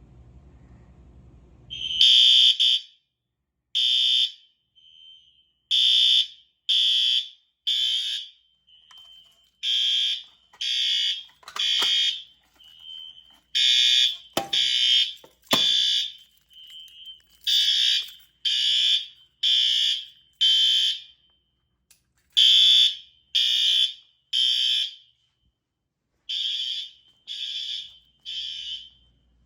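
Fire alarm horns sounding the evacuation signal in a temporal-3 pattern: groups of three loud, high-pitched blasts about a second apart, then a pause, with a fainter, out-of-step horn heard in the gaps. They start about two seconds in, and a few sharp clicks come around the middle.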